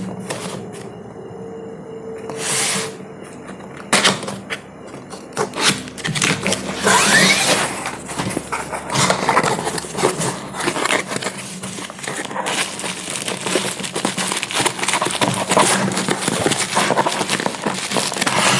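Long cardboard shipping box being opened by hand: the end flap is pried open and torn, with cardboard crackling, scraping and rustling. A few separate knocks come first, then dense, irregular crackle and scrape from about six seconds in.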